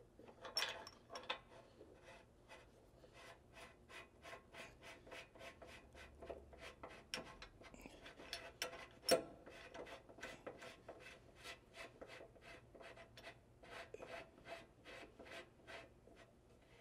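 A 3/4-inch grade 8 bolt, coated in anti-seize, being threaded by hand up into a tire-carrier spindle, its threads scraping in a faint run of short rubbing strokes, about three a second, with one sharper knock near the middle.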